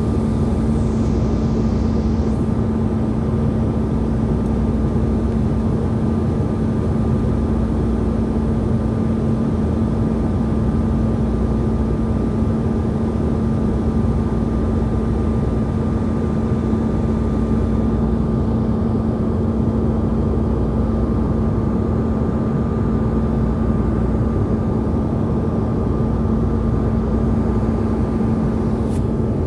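Airliner cabin noise in cruise flight: a steady roar of engine and airflow, with a constant low hum and a fainter, higher steady tone running through it.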